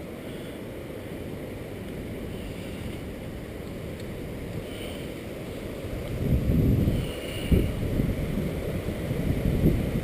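Gusty wind from an approaching thunderstorm buffeting the microphone, a steady low rumble that grows into stronger gusts about six seconds in.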